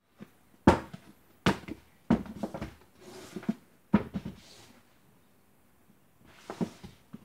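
Paperback books dropped one after another onto a tabletop: four sharp slaps in the first four seconds, the first the loudest, each followed by a short clatter as the books settle. Softer brushing and rustling of the books being pushed about comes between them and again near the end.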